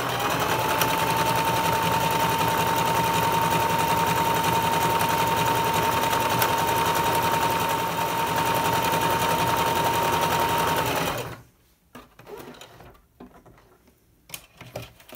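Singer sewing machine stitching a one-step buttonhole at a steady speed, its motor holding one steady whining pitch under the fast needle stitching. It cuts off suddenly about eleven seconds in, followed by a few faint handling sounds.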